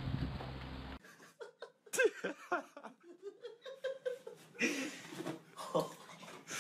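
A person laughing in short, breathy bursts of chuckles and giggles. A steady low hum from the previous clip cuts off about a second in.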